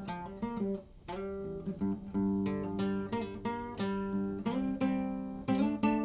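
Acoustic guitar played fingerstyle: plucked chords struck one after another, each ringing and fading before the next.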